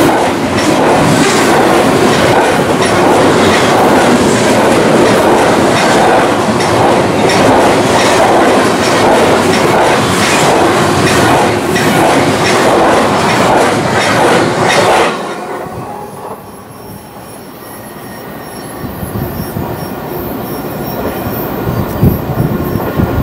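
A train passing close by at speed, its wheels clicking rhythmically over the rail joints. About fifteen seconds in the last car goes by and the sound drops off suddenly, leaving quieter rumbling.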